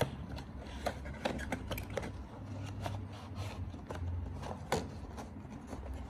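Cardboard box being handled and opened by hand: flaps and card scraping and rubbing, with irregular small clicks and taps, the sharpest a little before the end.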